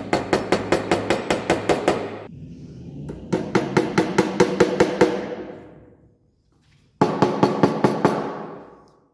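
A small hammer tapping cables down into place on a plywood sewing-machine table, in three quick runs of light, even blows at about six a second.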